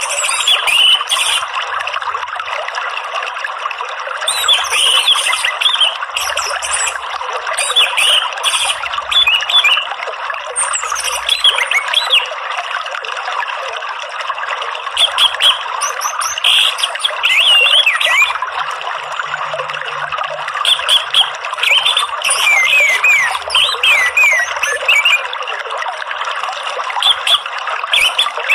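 Orange-headed thrush (anis merah) singing in bursts of quick, rising and falling whistled notes, separated by short pauses, over a steady rush of running water.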